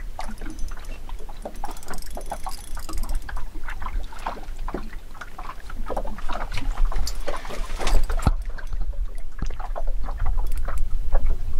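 Water splashing and knocking around a small boat, with many short knocks and one sharper knock about eight seconds in, over a steady low rumble.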